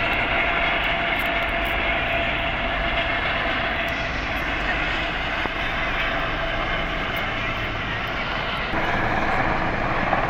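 Military helicopter flying past low: steady engine and rotor noise with a faint high whine, dipping a little in the middle and growing louder again about nine seconds in.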